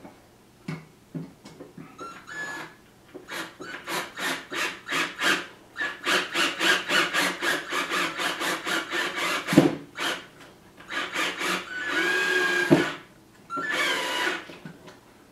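Drill with a screwdriver bit driving a screw into a metal clamp, run slowly in quick trigger pulses about three or four a second. Near the end come two short steady runs as the screw is snugged down.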